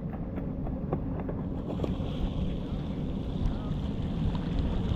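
Wind buffeting the microphone, a steady low rumble with no break.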